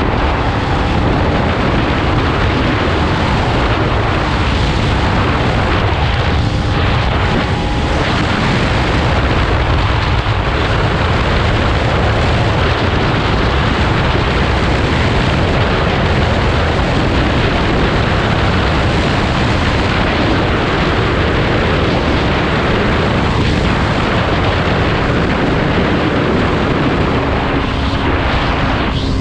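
Heavy wind rushing and buffeting over the microphone of a Kawasaki Z250 motorcycle cruising at about 110–130 km/h, with the engine's steady drone faint underneath.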